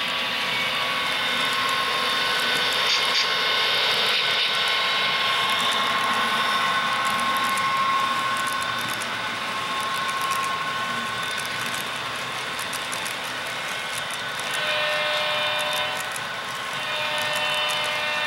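HO-scale model train running on the layout, its locomotive sound playing a steady engine drone made of several held tones, over light rapid clicking. Near the end a different chord of steady tones comes in, breaks off briefly and starts again.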